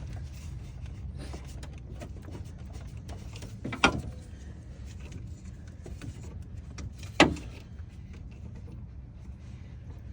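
Two sharp knocks of hand tools or parts against the car while working in the engine bay, about four and seven seconds in, over a steady low hum.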